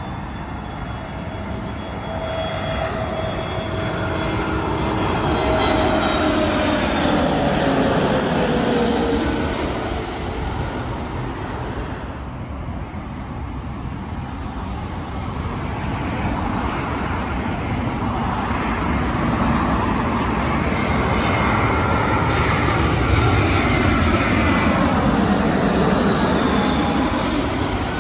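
British Airways Airbus A319 jet on final approach: engine noise with a whine that builds over the second half as it comes in low overhead, over steady road traffic. An earlier swell with a falling pitch passes about four to ten seconds in.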